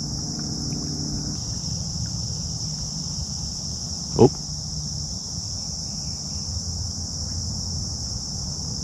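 Steady high-pitched chorus of insects, with a low background hum, broken by one short sweeping swish about four seconds in.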